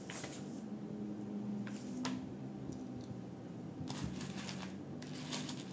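Paper pages of a LEGO instruction booklet being turned and rustling, once at the start and again near the end, with two sharp light clicks about two seconds in.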